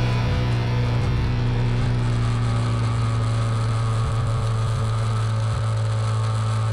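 Yamaha quad's engine running at a steady speed while riding across sand, a constant low drone.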